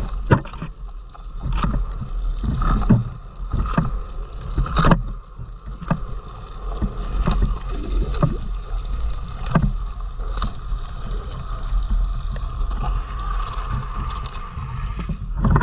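Rain and wind on a handheld microphone: a steady low rumble with a noisy hiss, broken by irregular knocks and splashes, one every second or so.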